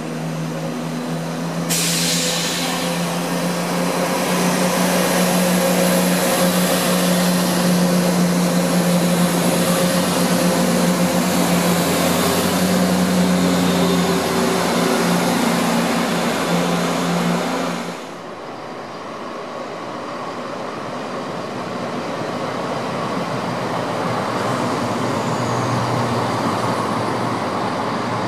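Class 168 'Clubman' diesel multiple unit's underfloor diesel engines running with a steady drone and hiss as the train moves along the platform. The sound drops away abruptly about 18 seconds in. Then a second Class 168 train is heard approaching, growing steadily louder.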